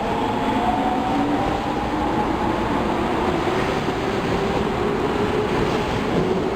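Osaka Metro Tanimachi Line subway train running: a steady rumble of wheels on rail with the electric traction motors' whine in several pitches.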